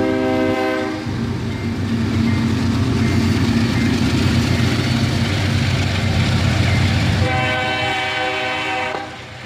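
A CSX diesel locomotive passes, sounding its multi-chime air horn. One blast ends about a second in, and a second blast runs from about seven seconds to nine. Between the blasts the diesel engine runs and the train rolls over the track.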